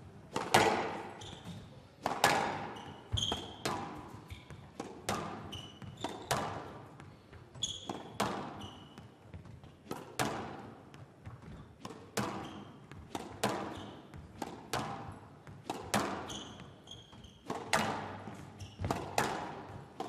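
Squash ball being struck back and forth in a rally: sharp racket-and-wall strikes about once a second, each echoing briefly, with short high-pitched squeaks from the players' shoes on the court floor in between.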